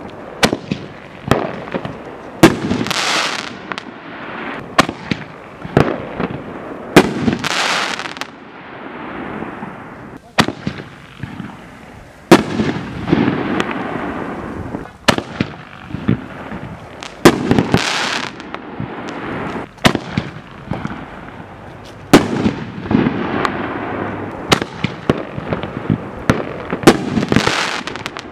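A canister-shell fireworks cake (HoneyBoom Detonator 18) firing in rapid sequence: sharp launch reports and aerial shell bursts come every second or so, with hissing noise between them.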